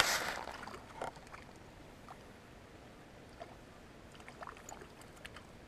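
A cast with a spinning rod: the swish of the cast fades at the start, and the rig lands in the water with a short plop about a second in. Then it is quiet, with faint scattered ticks.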